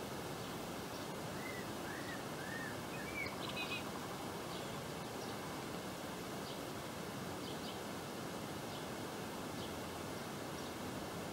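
Garden ambience: a steady background hiss with small birds chirping. A few short arching calls come in the first few seconds, then a quick rapid cluster of high notes is the loudest moment, followed by sparse single high chirps every second or so.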